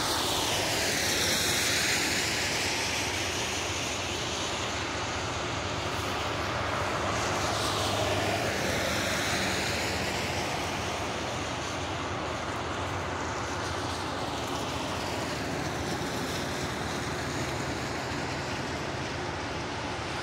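Cars passing on a wet road, their tyres hissing on the wet pavement. The hiss swells and fades as one passes about two seconds in and another near eight seconds, with a fainter pass later, and a steady wash of noise in between.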